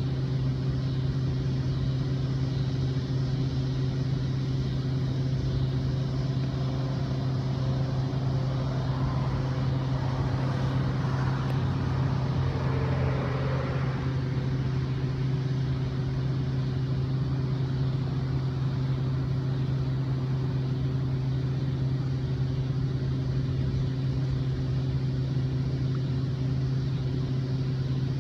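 A steady low mechanical hum with a few fixed tones above it, unchanging throughout, and a faint swell in the middle that comes and goes.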